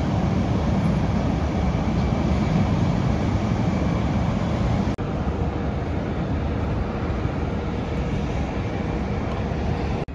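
Steady airport apron noise from parked aircraft and ground equipment: a deep rumble with a faint steady whine over it, dropping out for an instant about halfway through.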